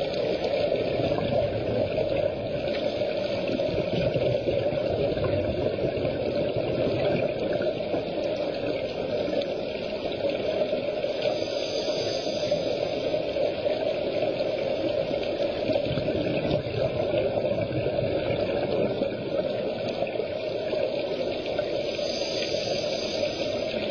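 Steady muffled underwater noise heard through a diving camera's housing: a low rumble and gurgle of scuba divers' exhaled regulator bubbles and water moving.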